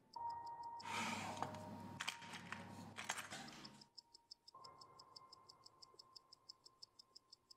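Mechanical watch ticking quickly and evenly. Between about one and four seconds in, a stretch of rustling handling noise with a few sharp clicks.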